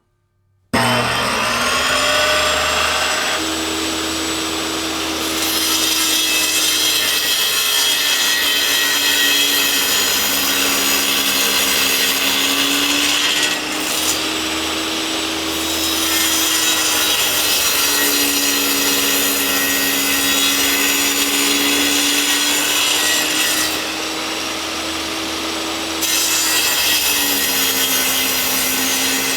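Large electric table saw switching on abruptly about a second in and spinning up with a rising whine, then running loudly while sawing wood. The motor's whine dips in pitch and recovers several times.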